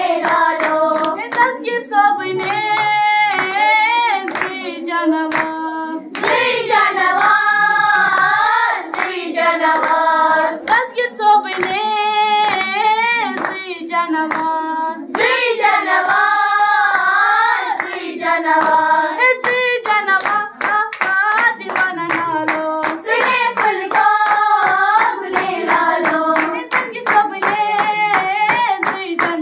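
A group of girls singing a song together in unison, with rhythmic hand claps keeping time.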